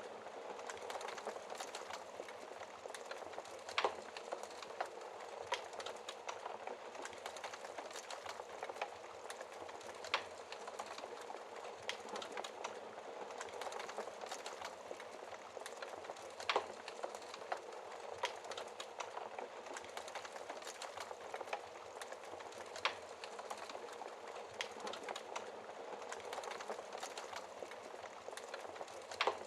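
Wood fire burning in a fireplace: a steady hiss full of small crackles, with four sharper pops spread through.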